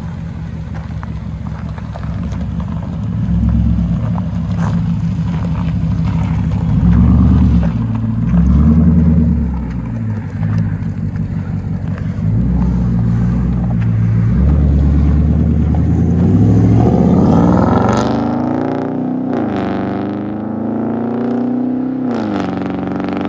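Dodge Durango's 5.7-litre Hemi V8 through an aftermarket exhaust with the middle muffler and rear resonators removed, running with a deep rumble that swells and eases. From about 17 seconds in it accelerates hard: the revs climb, drop at an upshift, and climb again twice.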